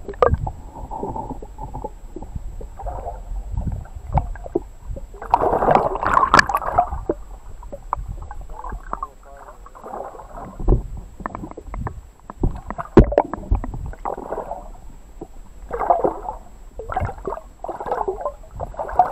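Muffled water sloshing, gurgling and splashing picked up by a camera held underwater, with knocks against its housing, as a hooked smallmouth bass thrashes at the surface beside it. The loudest burst of splashing comes about six seconds in, with more bursts near the end.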